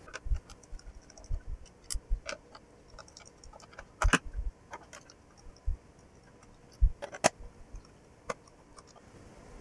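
Scattered clicks and knocks of a screwdriver and hands working on the plastic base of a landline telephone while its screws are undone, with a few louder knocks about four and seven seconds in.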